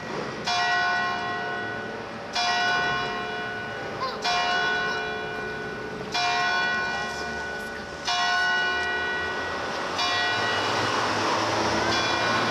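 Clock-tower bell tolling: single strokes about two seconds apart, five of them clear, each ringing on and dying away before the next. Near the end a steady rumbling noise takes over.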